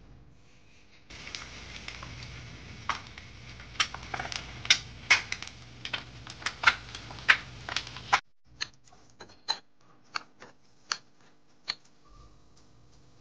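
Eggs frying in oil in a nonstick pan: a steady sizzle with loud crackling pops, cutting off suddenly just past the middle. Then about seven sharp, separate clicks follow.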